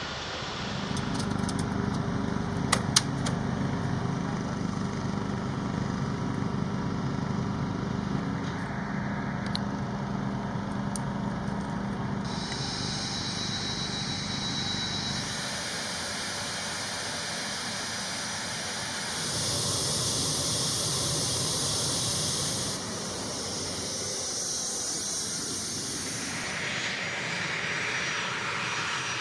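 Flight-line machinery running steadily: a low hum at first with a couple of sharp clicks, then a high jet-engine whine. The sound changes abruptly several times.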